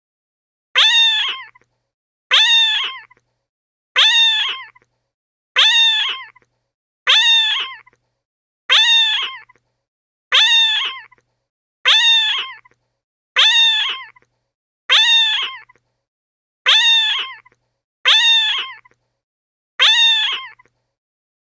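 A cat's meow sound effect, the same recorded call looped thirteen times about every one and a half seconds. Each meow is short, rising and then falling in pitch.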